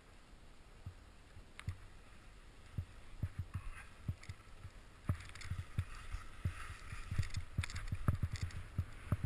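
Skis sliding over snow: irregular dull knocks throughout, and from about three and a half seconds in a hiss of the skis on the snow that grows louder as speed builds.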